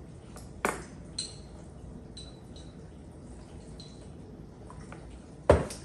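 Light clinks of a metal measuring spoon against a small glass bowl as soy sauce is measured out and tipped in. One sharp knock near the end is the loudest sound.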